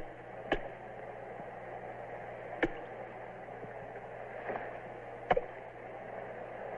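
Steady hiss and low hum of an old film soundtrack, broken by a few sharp clicks spread through, the first right at the start.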